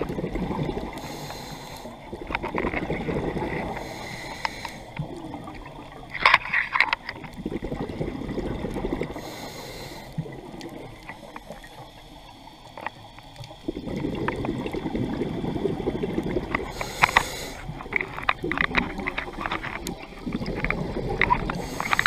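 Scuba diver breathing through a regulator underwater: a short hiss on each inhalation and a longer burst of bubbling, crackling exhaled bubbles, repeating several times.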